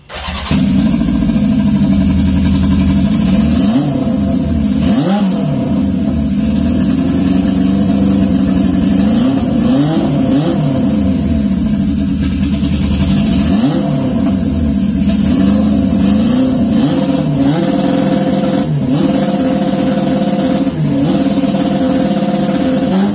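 Turbocharged Honda CB750 SOHC inline-four engine held at high revs on the two-step launch control. The ignition is pulled back so that it fires late into the turbine to spool the turbo. The engine note is loud and steady, and its revs dip and climb back every few seconds.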